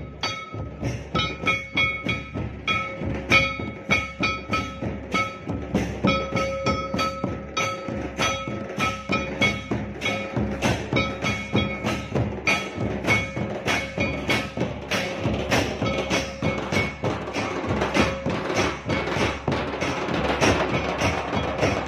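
Folk drums beaten with sticks in a fast, steady rhythm of about three strikes a second, with a melody of short repeated notes over them. Near the end the melody gives way to a denser, noisier wash.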